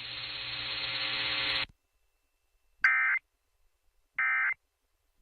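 A hiss of radio static, growing louder, cuts off suddenly under two seconds in; then two short, identical bursts of Emergency Alert System end-of-message data tones, about a second and a half apart, signalling the end of the alert broadcast.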